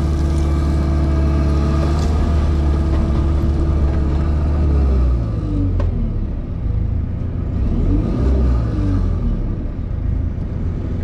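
Diesel engine and hydraulics of a JCB Pothole Pro working the digging arm, heard from inside the cab. A steady engine note for the first half, then the note drops, with a pitch that rises and falls as the arm moves and a single sharp knock about halfway through.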